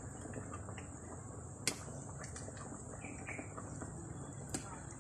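Steady high-pitched drone of insects, with a metal ladle clicking sharply against the cooking pot twice, about two seconds in and near the end.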